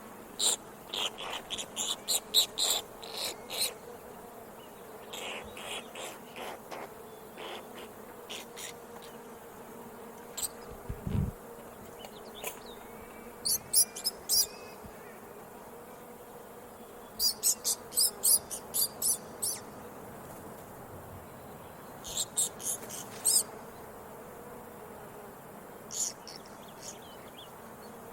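Squirrel chirping: runs of short, sharp, high-pitched chirps in quick succession, coming in bouts a few seconds apart.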